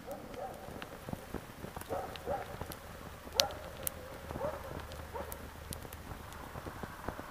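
Small fire of crumbled pine resin crackling on a bed of leaves, with irregular pops, the loudest about halfway through. Short chirping calls sound faintly behind it.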